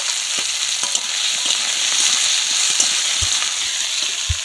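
Sliced potatoes sizzling in hot oil in an iron wok, stirred and scraped with a steel spatula. Two brief low thumps come near the end.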